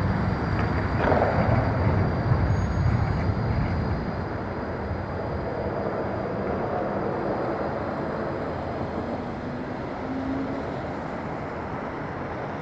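A city tram and street traffic, heard as a low rumble that is heavier for about the first four seconds and then eases to a quieter, steady drone.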